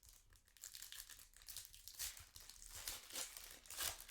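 Foil trading-card pack wrapper being torn open and crinkled by hand: a run of crackling, with the loudest crinkles about three and four seconds in.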